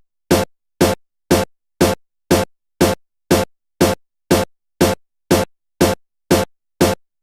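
Background electronic music with a drum-machine beat, heard as short, evenly spaced bursts about twice a second with silence between them.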